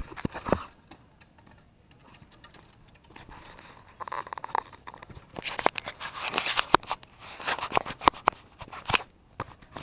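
Handling noise on a small camera: clicks, scrapes and rustling as it is knocked about and rubs against clothing right at the microphone. A few sharp knocks at the start, a quieter stretch, then a dense run of clicks and scraping from about four seconds in.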